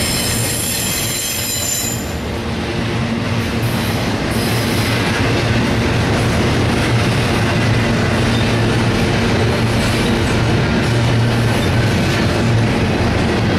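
Cars of a CSX intermodal freight train rolling past close by: a loud, steady rumble of steel wheels on the rails. A high whine from the wheels stops about two seconds in.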